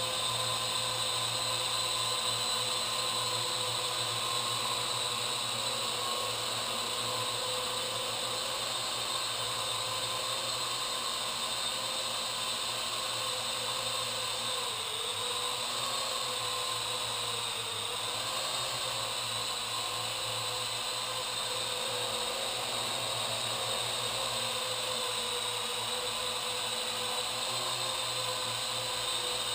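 Parrot AR.Drone 2.0 quadcopter's four brushless motors and propellers whirring steadily in flight, with a high whine over a lower hum. The pitch dips briefly twice, about halfway through.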